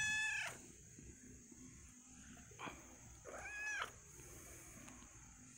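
Kitten meowing twice: a loud meow right at the start and a second, slightly quieter one about three and a half seconds in, each rising then falling in pitch.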